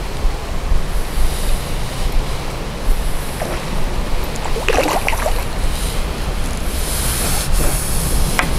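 Wind buffeting the microphone: a steady low rumbling noise, with a brief higher sound about halfway through.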